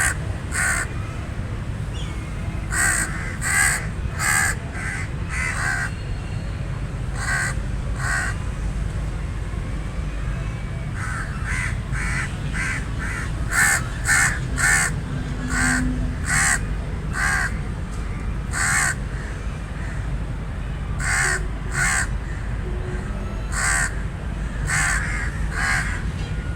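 Raven cawing: short harsh calls, some single and some in quick runs of three to six, with pauses of a second or more between, over a steady low background rumble.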